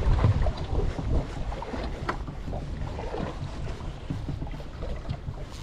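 Wind buffeting the microphone and water slapping against a small boat's hull, with scattered irregular knocks.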